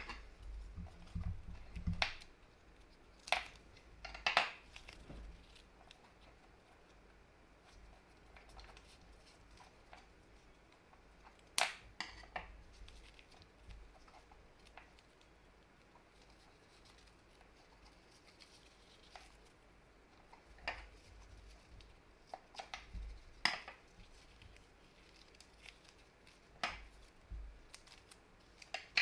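Scissors snipping self-adhesive foam tape and its paper backing being peeled: a scattered handful of short, sharp snips and crackles, with quiet handling of the tape in between.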